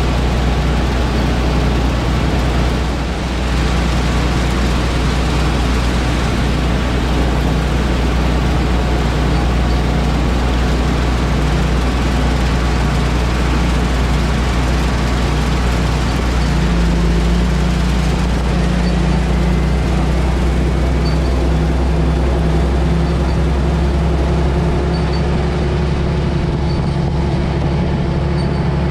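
Large diesel farm machine engine running steadily under load, with its engine note shifting about halfway through.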